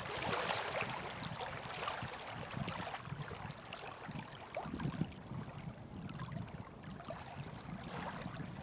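Small lake waves lapping and splashing against a rocky shore: a steady wash of water with many small, irregular splashes.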